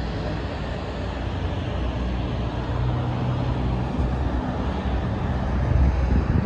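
Loud low rumble of passing motor vehicles, building a little louder near the end.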